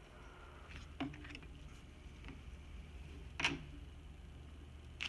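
Quiet room tone with a steady low hum and a few faint taps, one about a second in and another about three and a half seconds in.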